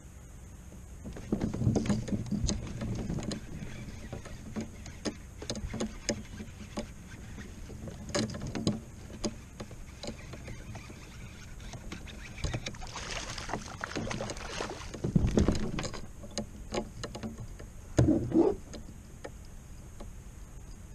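Scattered knocks, clicks and rustles from an angler moving about in a Hobie Outback fishing kayak while reeling in and landing a bass. A few louder bumps come in the second half.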